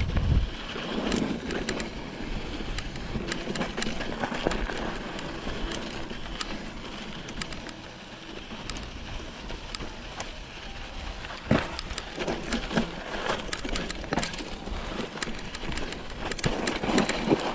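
Mountain bike rolling over sandy, rocky singletrack: a steady crunch of tyres on dirt and stone, with frequent sharp clicks and rattles from the bike over the bumps and a louder knock about two thirds of the way through.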